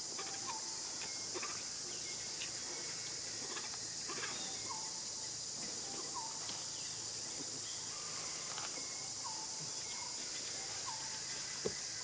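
Tropical jungle ambience: a steady, high-pitched chorus of insects, with a bird's short call repeating about every two seconds.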